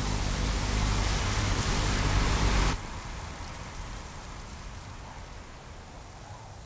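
A dense rushing flutter of a great swarm of moths' wings. It grows louder, drops off sharply a little under three seconds in, and then fades away.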